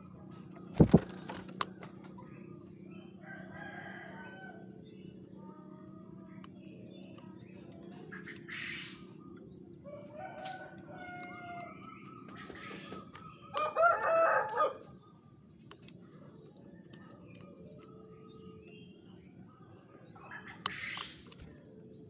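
A rooster crows once, a call of about a second and a half some two-thirds of the way through, over faint scattered chirps of other birds. A sharp knock sounds about a second in.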